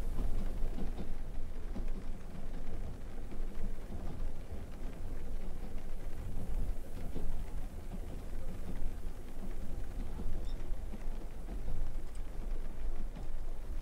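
Low rumbling noise that rises and falls unevenly, with faint scattered ticks.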